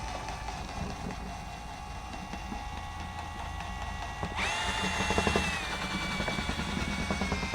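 A small electric motor, such as a power drill's, whining steadily; a little over four seconds in it jumps sharply to a higher pitch and speed, then eases down slightly.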